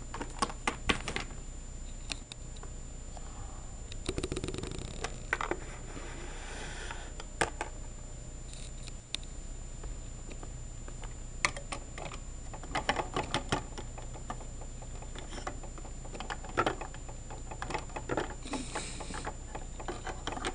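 Scattered light clicks and taps of small plastic Littlest Pet Shop figurines handled and set down on a plastic playset, over a steady hum.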